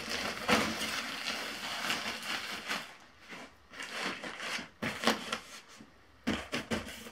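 Nylon fabric rustling and crinkling from the pump sack and sleeping pad being handled: a continuous stretch of rustling, then several shorter bursts in the second half.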